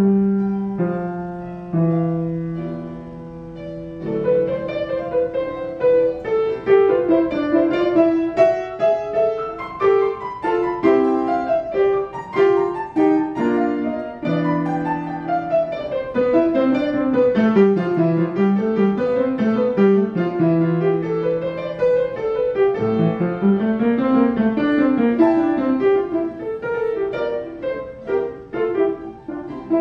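Solo grand piano playing: slow held chords for the first few seconds, then from about four seconds in, quick running figures over sustained bass notes.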